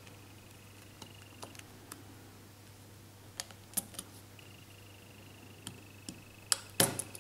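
Small sharp clicks and taps of fingers working the mainboard and plastic frame of a disassembled Huawei Y550 smartphone. The clicks are scattered at first, with a louder quick cluster near the end as the board comes free of the frame. A faint, steady high whine sounds behind them.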